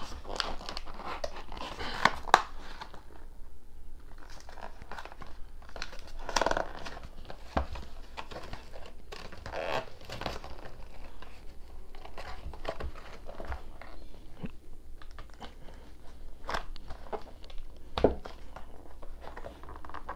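Corrugated cardboard shipping box being torn and pried open by hand: irregular crinkling, tearing and rustling of the cardboard and its packing tape, with a few sharp knocks as the box is handled.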